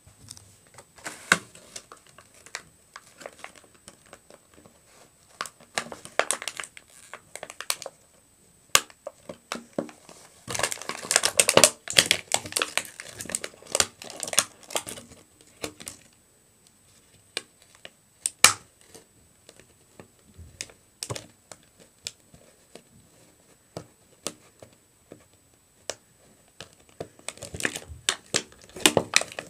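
Plastic packaging of a Cars 2 diecast toy car crinkling and crackling as it is handled, in irregular bursts with sharp clicks, busiest around the middle.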